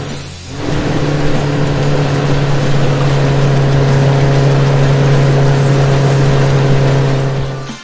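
Vehicle engine running steadily: a low hum with a hiss over it, starting about half a second in and cutting off just before the end.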